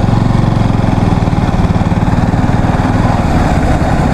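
Motorcycle engine running steadily at low road speed, heard close from on board the bike.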